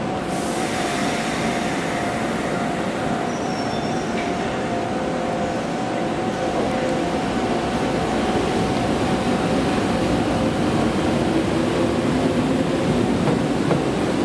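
Kotoden electric train pulling out along the platform and passing close, its running noise on the rails growing louder as it nears. A steady hum sounds through the first part and fades out after about eleven seconds.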